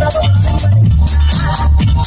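Loud electronic dance music with a heavy bass line and a steady beat, played over loudspeakers.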